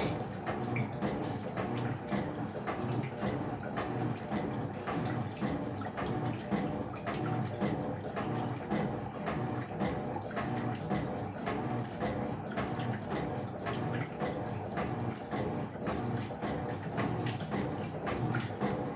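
Electrolux LF75 top-loading washing machine agitating a load of clothes in water, a steady sloshing wash rhythm.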